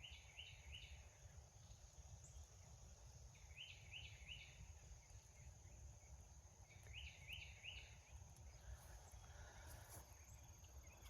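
Faint songbird singing: a short phrase of three or four quick rising notes, repeated about every three seconds, over a steady high insect drone.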